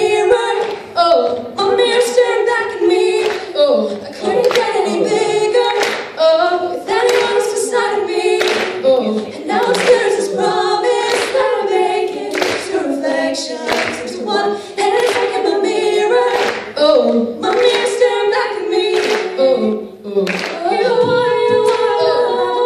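A group of voices singing a cappella, with sharp percussive hits roughly once a second marking the beat.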